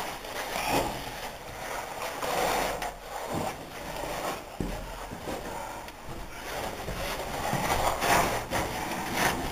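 Clothing and body scraping and rustling against cave rock as a person squeezes down through a tight passage, with a few sharp knocks, heaviest around the middle and near the end.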